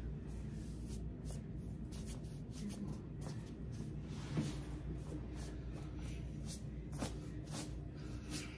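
Light handling noises, rustling with scattered small clicks and taps, over a steady low hum.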